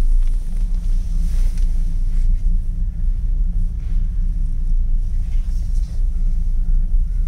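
Steady low rumble of an aerial ropeway cabin running along its cable.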